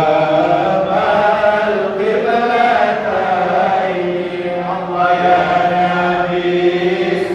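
A group of men chanting dikir together in unison, drawing out long held notes. A new phrase begins about two seconds in and again about five seconds in.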